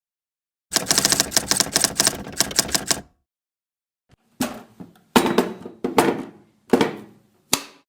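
Typewriter keys being struck in a fast run of clicks for about two seconds. After a pause come five separate, heavier knocks, each with a short ringing tail.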